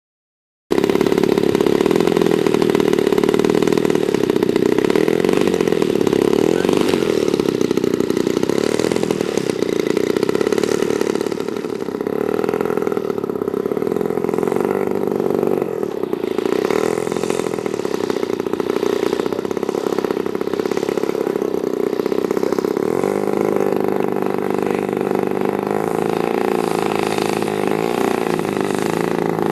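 Gas engine of a 1/3 scale Aeronca Champ RC model airplane running steadily at a fairly even speed, easing off briefly about twelve seconds in.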